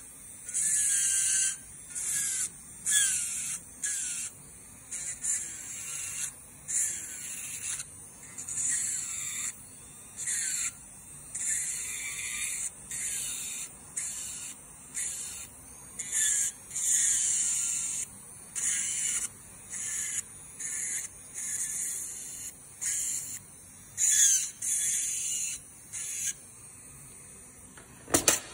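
Electric nail drill grinding a large 3D charm off a nail: the bit's high scraping hiss comes in short bursts, about one a second, with a wavering pitch. The grinding stops a couple of seconds before the end, followed by a couple of sharp clicks.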